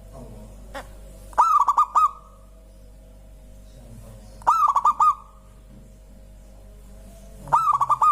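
Zebra dove (perkutut) singing: three short phrases about three seconds apart, each a quick run of about five staccato cooing notes.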